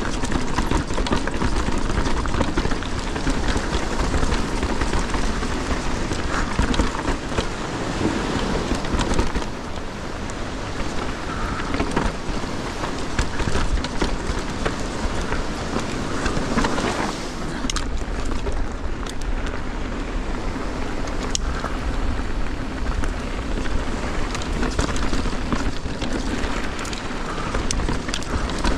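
A mountain bike descending a rough dirt trail, heard from a GoPro on the bike or rider: wind buffets the microphone over a steady crunch and clatter of tyres on loose ground and the rattle of chain and frame. Past the middle the clatter thins and the low wind rumble grows.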